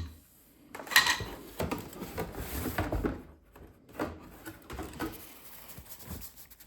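Packaging and small parts being handled and rummaged through: irregular rustling with uneven clicks and knocks, the sharpest about a second in.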